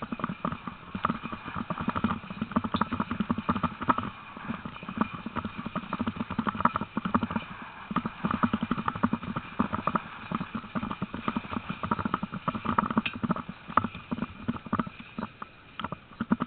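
A sled-dog team running on a grassy dirt track, a quick, irregular patter and clatter of paws and gear.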